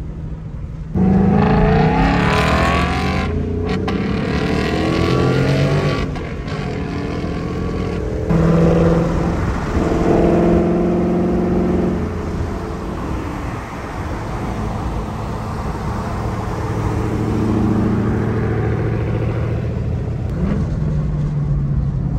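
2022 Ford Mustang Mach 1's 5.0-litre V8 with a Steeda mid pipe and active exhaust in track mode, heard from inside a car driving alongside. It revs through downshifts and accelerates past in a flyby, with a sudden loud rise about a second in and another about eight seconds in, then settles into quieter, steadier running.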